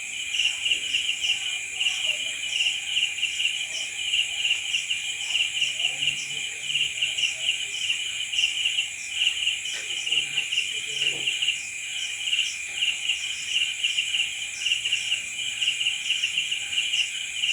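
Chorus of crickets chirping continuously: several calls layered together, a pulsing trill over a steady high buzz, with short chirps repeating at a regular pace.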